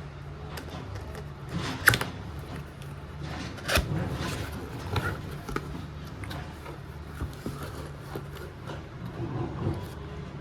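Handling noises of a keyboard being unboxed: a few sharp knocks, the loudest about two and four seconds in, and scattered soft rustles and taps over a steady low hum.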